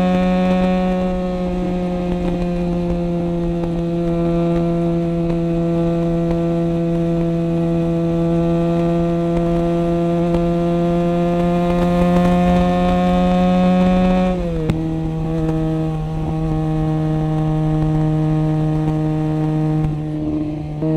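SRK250RR motorcycle engine running at steady road speed, its note creeping slowly higher, then dropping in one quick step about two-thirds of the way through before holding steady again.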